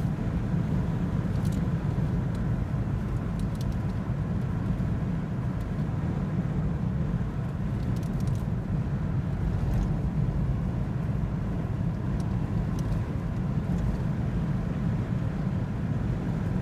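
A motor vehicle running steadily with an even low rumble, a faint steady whine above it and a few light clicks.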